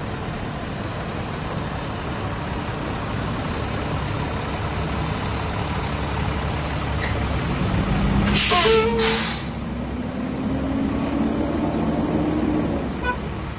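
Truck engine running steadily. About eight seconds in, the air brakes let out two loud hisses of released air. The engine note slowly climbs, then drops away near the end.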